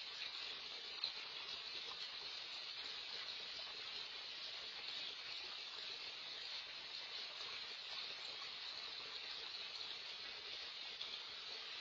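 Backyard fountain's bubbler jets splashing steadily into a raised pond, a continuous hiss of falling water heard through a security camera's microphone.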